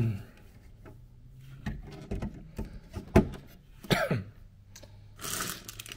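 Scattered light plastic knocks and clicks of LEGO bricks as the assembled car transporter trailer is handled and set down on a tabletop, with a brief rustle near the end.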